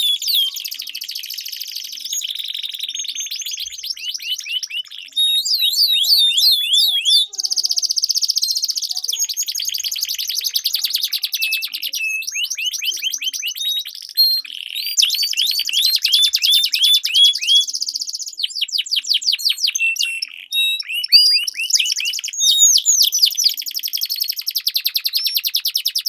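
Domestic canaries singing without a break: long rapid rolling trills alternating with runs of quick swooping whistled notes.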